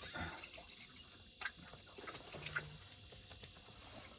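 Faint scattered clicks and small taps, a couple slightly louder about a third and two-thirds of the way in, with a brief low hum in the middle.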